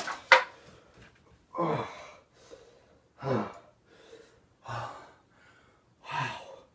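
A person breathing hard and gasping, out of breath, with four heavy breaths about a second and a half apart. A sharp knock comes just after the start.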